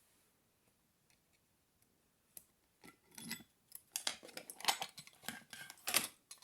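Lock-picking tools working in a Master Lock M50EURD padlock: quiet at first, then from about two seconds in a busy run of small metallic clicks and scrapes, with the sharpest click near the end.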